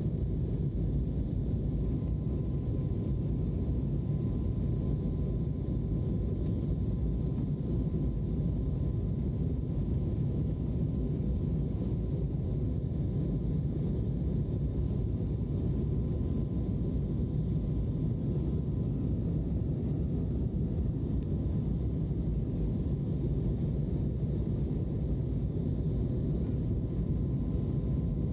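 Steady cabin noise inside an Airbus A321neo airliner in flight: a low, even rumble of the engines and airflow, with a faint steady whine above it.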